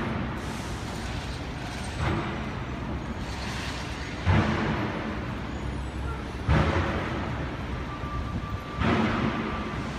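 City street traffic noise, with a dull thump about every two seconds. A faint steady high tone sounds near the end.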